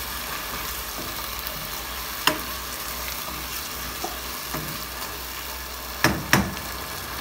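Mushrooms sizzling in a pot while a wooden spoon stirs them, with a click about two seconds in. Near the end come two sharp knocks, the loudest sounds, as the spoon strikes the pot.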